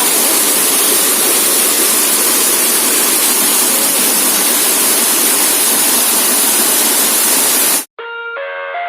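Waterfall's falling water: a loud, steady rushing noise. It cuts off abruptly near the end, and instrumental music with distinct melodic notes begins.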